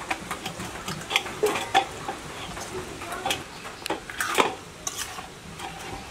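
Metal spatula stirring and scraping chicken curry with potatoes in a metal kadai, in irregular strokes over a sizzle of the frying masala.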